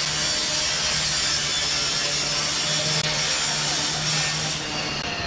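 Power saw cutting through a metal shop shutter gate: a steady, high-pitched grinding hiss over a low hum, easing off slightly near the end.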